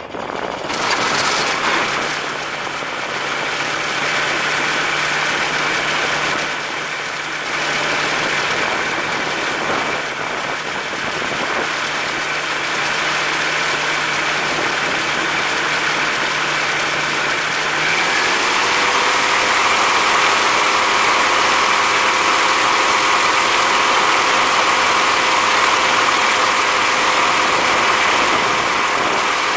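X'Air microlight aircraft engine and propeller running steadily on a static ground run, with a constant rush of air noise. About 18 seconds in, the revs climb and hold at a higher, louder pitch. This is a run-up to check maximum RPM after the propeller pitch was changed.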